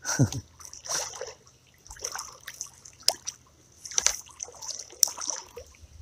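Shallow creek water splashing and sloshing in short bursts, about one a second.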